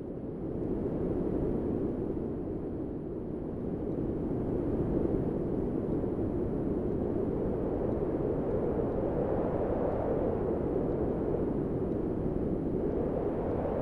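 A wind sound effect: a low, steady rushing of wind that swells up over the first second and rises slightly in pitch near the end.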